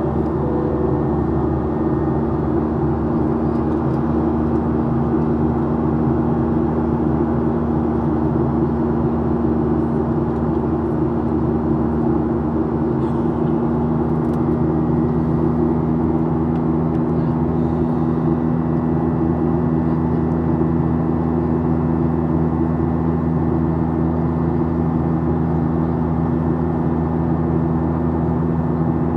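Steady cabin noise of a Boeing 737-800 in flight: the rush of air along the fuselage and the even drone of its CFM56-7B turbofan engines, holding a few constant low tones.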